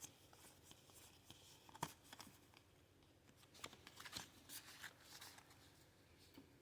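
Near silence with faint handling sounds: light rustles and a few soft clicks of trading cards and packaging being handled.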